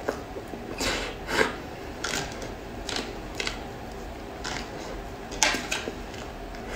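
Close-up eating sounds of soft matcha cream cake: irregular wet mouth smacks and sharp clicks while chewing, some from the small fork against the mouth and plastic tray.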